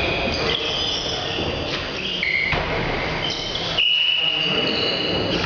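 Athletic shoes squeaking on a sports-hall floor during volleyball play: a string of short, high squeaks at different pitches, with one longer squeak a little before four seconds in, over a steady hall background.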